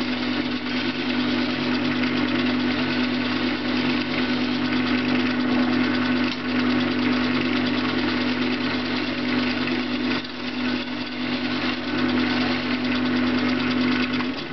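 Wood lathe running with a steady motor hum while a gouge cuts the spinning mock-orange (seringat) blank, roughing it down to a cylinder, with a continuous rough scraping. The motor sound cuts off suddenly at the end.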